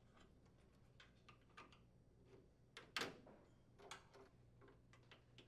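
Faint scattered clicks and small rattles of wire connectors being pulled off the microwave's door switch terminals, the sharpest click about three seconds in.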